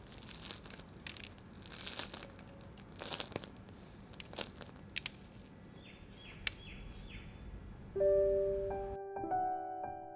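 Crisp rice-paste crust of a tiger bread loaf crackling and crunching in irregular bursts as hands squeeze the loaf. About eight seconds in, a soft piano tune starts.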